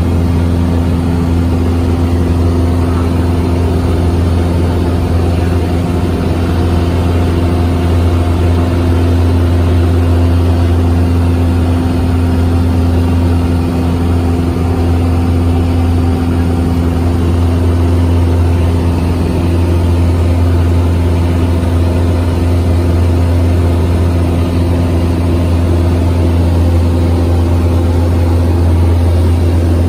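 Piper Cherokee 140's four-cylinder Lycoming O-320 engine and propeller droning steadily in flight, heard inside the cabin as a constant low hum.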